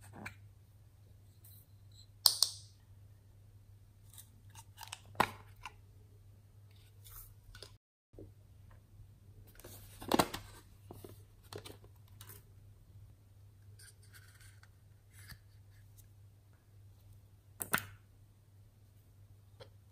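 Sparse clicks and taps of small plastic items being handled, about five sharp clicks a few seconds apart with lighter taps between, over a faint low hum.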